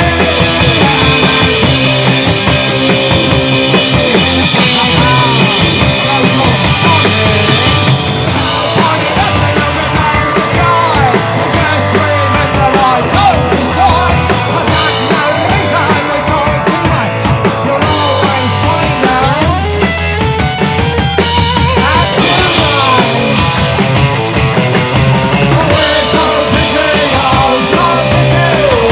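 Loud punk rock band music: distorted guitars, bass and a drum kit playing at a steady drive, with a lead guitar or voice line bending in pitch over it.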